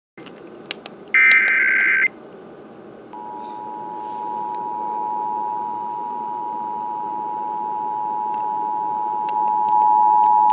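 Emergency Alert System tones for a statewide required monthly test: a one-second burst of the warbling SAME digital header data about a second in, then the two-tone EAS attention signal, held steady and stepping louder near the end.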